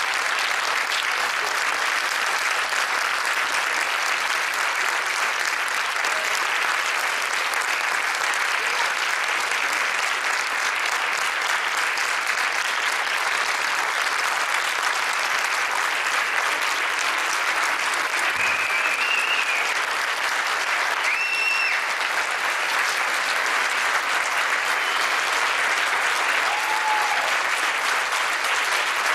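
Audience applauding steadily and without a break in a large hall.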